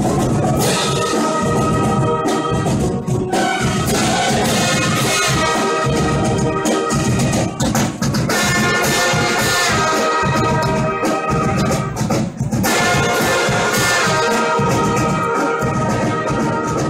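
Marching brass band playing: sousaphones, trumpets and trombones together in a loud, continuous tune.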